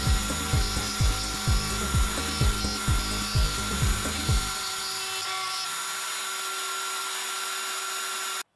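Table-mounted router with a bottom-bearing bit running steadily and trimming the edge of a Baltic birch plywood ring flush to its template. It plays over background music with a low thumping beat about twice a second that stops about halfway through. All sound cuts off abruptly just before the end.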